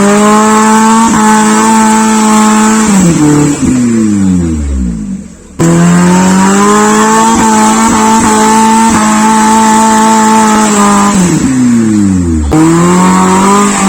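Off-road 4x4 jeep engine running hard at high revs, held steady for a few seconds and then dropping away as the throttle is let off. This happens twice, each time breaking off into sudden high revs again, about five and a half seconds in and near the end.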